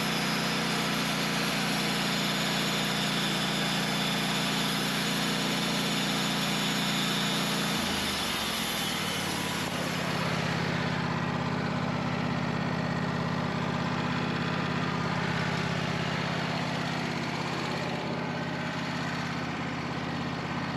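Portable sawmill's engine running steadily under a loud high hiss of the blade cutting through oak. About eight seconds in the engine note changes, and soon after the hiss fades as the cut ends, leaving the engine running.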